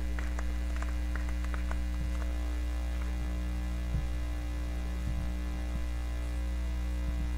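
Steady electrical mains hum in the audio feed, with faint ticks in the first couple of seconds and a few soft low thumps about four to five seconds in.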